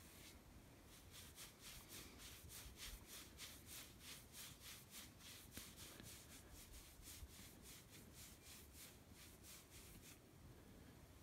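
A hand scratching a deer's fur: faint, rhythmic rubbing at about three strokes a second, stopping about ten seconds in.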